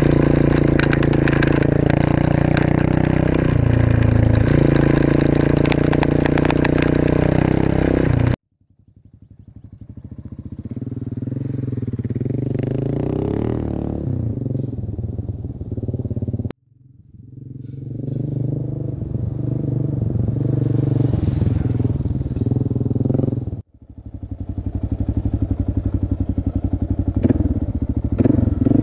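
Kawasaki KLR650 single-cylinder four-stroke engine on a dirt track. For the first eight seconds it runs steadily close up, with small changes in pitch as the throttle moves. Then, in separate cut-together takes, it swells and fades as the bike passes a trackside camera, and it runs close up again near the end.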